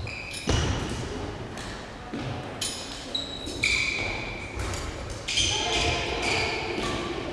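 Badminton play on a sports-hall court: thuds of footwork and short high squeaks of shoes on the floor, heard in a large, echoing hall with voices in the background.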